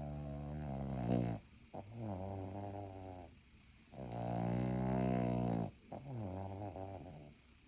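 French bulldog snoring like a buzz saw in its sleep: four long, buzzy snores, each over a second, with short pauses between breaths.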